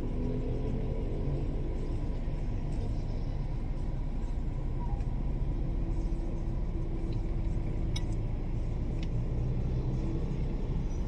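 Steady low rumble of a car, heard from inside its cabin, with two faint ticks about eight and nine seconds in.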